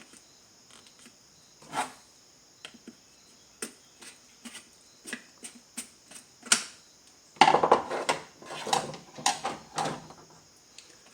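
Power steering fluid reservoir cap being put back on and closed: scattered single clicks and knocks, then a denser run of clicking and rattling about seven seconds in.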